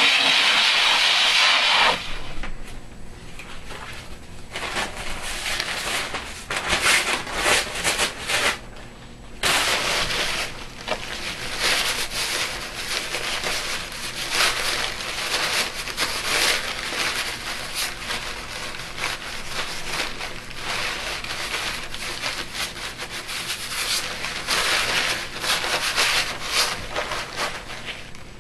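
Glass muller scraped over a glass grinding slab, a gritty rubbing noise in irregular strokes, heaviest for the first two seconds and briefly stopping about nine seconds in. A rag wipes over the glass and the muller.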